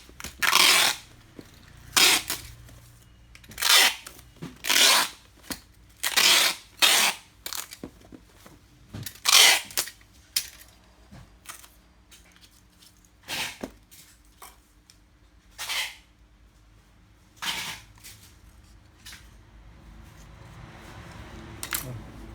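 Parcel being packed: a dozen or so short, sharp rasping bursts at uneven intervals, growing sparser after about ten seconds.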